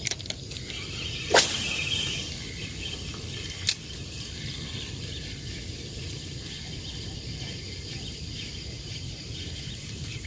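A lure cast with a fishing rod: a quick swish with line running out about a second in, and a single click a couple of seconds later. After that comes steady outdoor background with a thin, high, steady insect tone.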